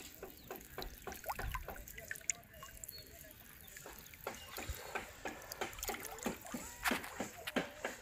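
Water lapping and dripping against a small wooden boat: irregular small plunks and trickles, coming more often in the second half.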